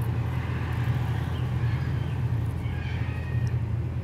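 A steady low mechanical hum, with faint high wavering sounds above it.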